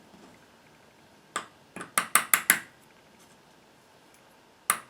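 Metal spoons clinking against each other in short sharp clinks: one about a second in, a quick run of about five around two seconds in, and one more near the end.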